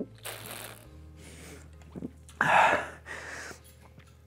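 A person drinking a canned drink down in one go, with soft gulping and breathing noises, then a short loud breathy gasp about two and a half seconds in as he comes up for air.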